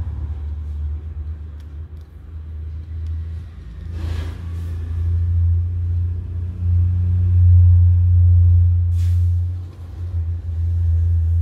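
A loud, steady low rumble that swells a little past the middle, with a brief rustle about four seconds in and a short hiss about nine seconds in.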